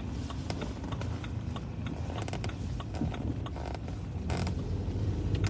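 Low rumble of a car heard from inside the cabin, growing slightly toward the end, with scattered small creaks and clicks and a brief rustle a little past four seconds.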